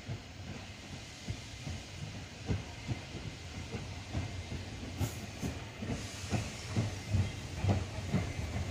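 Tram running on rails, its wheels knocking over the rail joints in an uneven rhythm that grows louder and more frequent, with a brief hiss about five seconds in.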